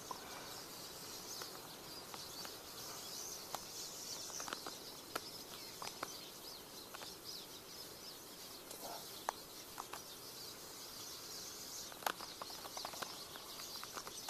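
Faint outdoor ambience: a low, even hiss with scattered light clicks and ticks.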